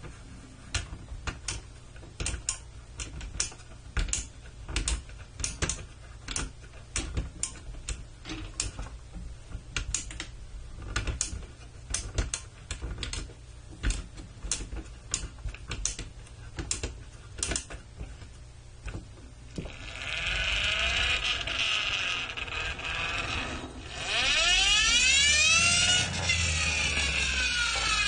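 Pororo plastic toy forklift being worked by hand: irregular plastic clicks, two or three a second, as its fork mechanism is moved. About two-thirds of the way in the clicking stops and a steady whir takes over, louder and with sweeping tones near the end, from the toy's friction gear running.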